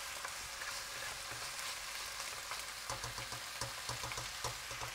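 Diced chicken breast, fried onion and ground walnuts sizzling steadily over high heat in a nonstick pot, stirred with a spatula. A run of light knocks comes about three seconds in.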